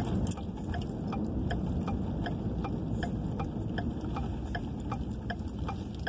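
Car turn-signal indicator ticking steadily, about two clicks a second, over the low rumble of the car's engine and tyres on the road.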